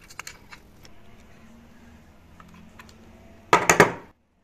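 Light metallic clicks of an adjustable wrench working the brass hex of a combi-boiler three-way valve, loosening the repair-kit cartridge, then a short, louder clatter of metal near the end.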